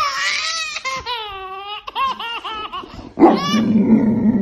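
Baby laughing hard: a long, high squealing laugh, then short giggles, then a louder, lower stretch of laughter about three seconds in.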